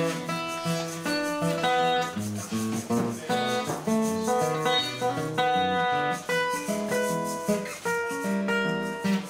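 Steel-string acoustic guitar playing a solo instrumental tune, single picked notes one after another over a bass line.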